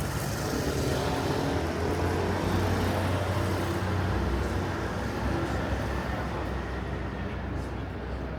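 A motor vehicle driving past, its engine a low drone under tyre noise, with the higher sound fading away near the end.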